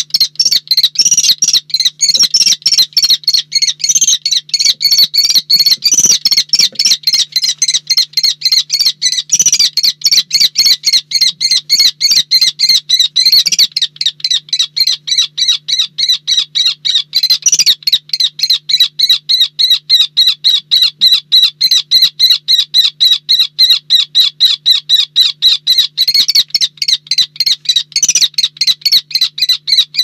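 Kestrel calling a rapid, unbroken string of shrill kee-kee-kee notes, about five or six a second, as it grapples with a barn owl. A few dull knocks of the scuffle come through, over a faint steady low hum.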